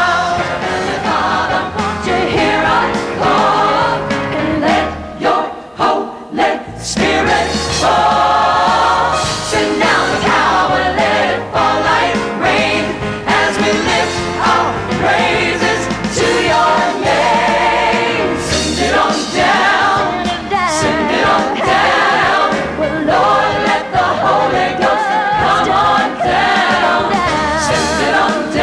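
Gospel choir singing over a band with a steady bass line. The music thins out briefly about five to seven seconds in, with a few sharp hits, then comes back in full.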